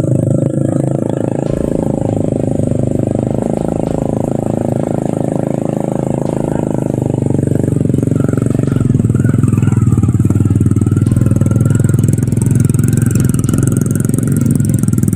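Motorcycles heavily loaded with oil palm fruit bunches running at low speed on a muddy dirt track. One rides close past and a second follows, and the engine sound grows louder after about nine seconds.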